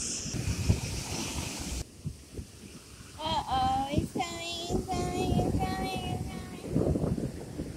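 A high voice singing a short run of held notes with a wavering vibrato, over wind rumbling on the microphone that drops away for the singing and comes back near the end.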